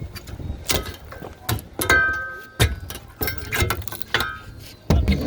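Irregular sharp knocks and bangs from roofing work on the roof deck, about ten in a few seconds. Some are followed by a brief high squeak.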